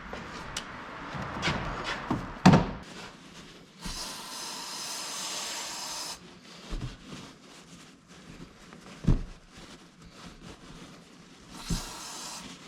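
Compressed air hissing into a tyre from an inflator gauge, a burst of about two seconds that starts and stops sharply and a shorter one near the end, with a few knocks of tools being handled.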